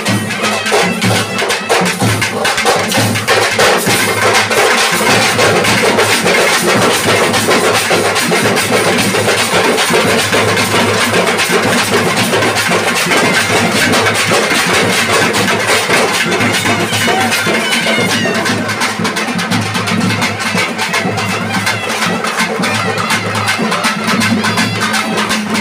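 Thavil drums played fast in a dense, steady rhythm, sharp stick strokes on one head and slaps from the thimbled fingers on the other.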